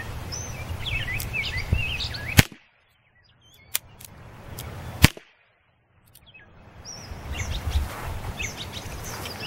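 Rossi Model 13 .22 revolver firing Aguila primer-only rounds, which have no powder: two sharp pops about two and a half seconds apart, the first a little past two seconds in, with a faint click between them.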